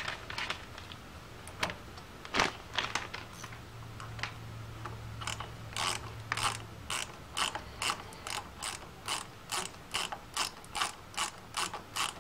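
Hand ratchet clicking as a screw is run down on the motorcycle's water pump cap: a few uneven clicks at first, then from about five seconds in a steady run of quick strokes, about three clicks a second.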